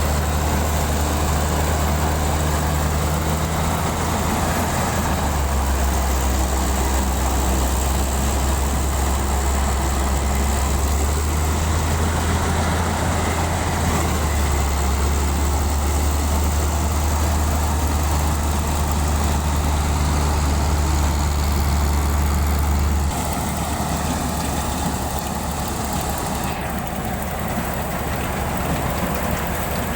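Combine harvester's diesel engine running steadily, a loud low drone with machinery noise over it. About three-quarters of the way through, the low drone drops away and the sound gets a little quieter.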